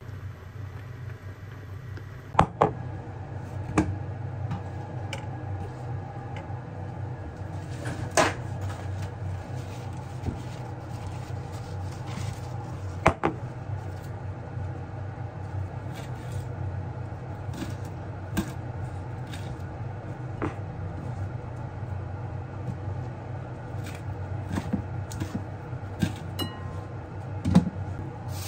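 Kitchen food-prep sounds: scattered sharp clinks and knocks of a glass salad bowl and utensils being handled, over a steady low hum.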